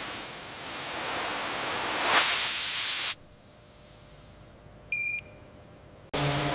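A rushing hiss that builds and then cuts off sharply about three seconds in, followed by a single short electronic beep. Just before the end a motor starts up and runs with a steady low hum.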